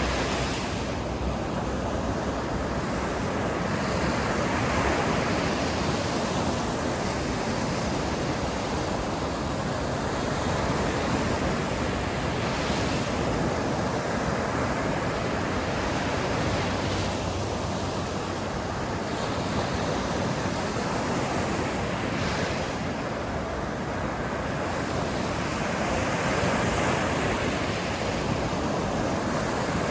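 Sea waves breaking and washing up the shore: a continuous surf rush that swells and eases slowly.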